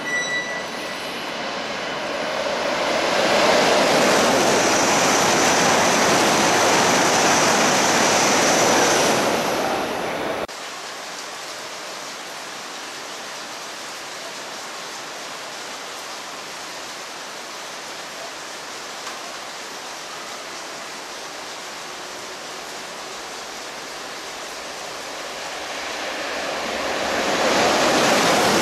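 E7 series Shinkansen trains passing through a station at high speed in heavy rain, a rushing of air and thrown-up spray with no clear tone. The rushing builds over a couple of seconds, stays loud, and cuts off suddenly about ten seconds in. A quieter steady rushing follows, then it swells again near the end as the next train comes through.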